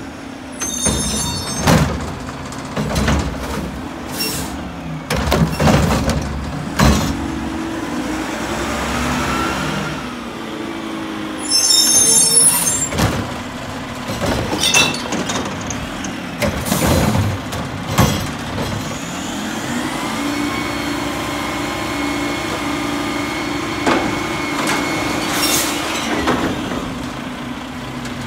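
Mack LR garbage truck with a Heil Curotto-Can attachment working carts: the diesel engine runs under repeated clanks and bangs of carts being gripped and tipped into the can, with two short hisses of air. In the second half the engine revs up and holds a higher, steady pitch, driving the hydraulics as the Curotto-Can is raised over the cab to dump into the hopper.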